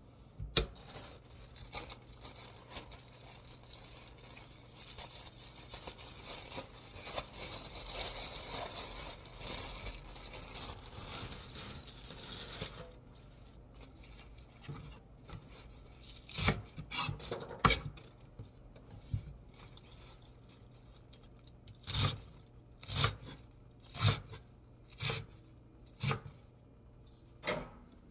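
Kitchen food-prep sounds: for the first half, a long run of crinkling, tearing and snipping like packaging being cut and torn open. Then separate knife knocks on a cutting board, a few close together and then about one a second near the end.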